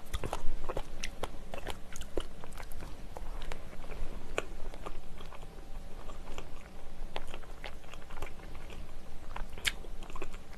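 Close-miked chewing of a soft cream-cheese brioche, full of many small, irregular wet mouth clicks.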